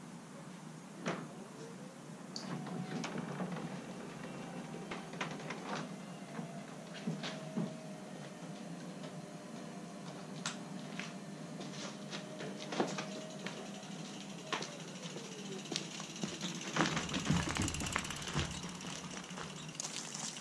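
An up-and-over garage door opening: a steady hum that rises in about two seconds in and falls away at around fifteen seconds, with many sharp clicks and creaks from the mechanism. A low rumble comes in near the end.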